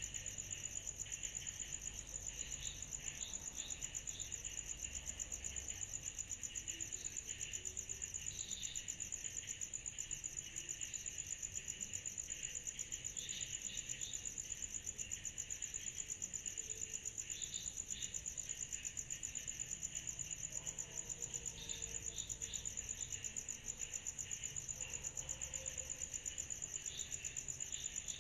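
Summer-night insect chorus: a steady, high, evenly pulsing trill that keeps on unbroken, with scattered shorter chirps from other insects mixed in.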